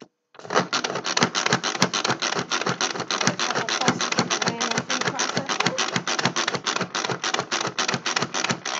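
Pampered Chef manual food processor being pumped rapidly by its plunger, a fast, even clatter of plastic clacks, several a second, as the spinning blades chop mango pieces in the bowl. It starts about a third of a second in and stops near the end.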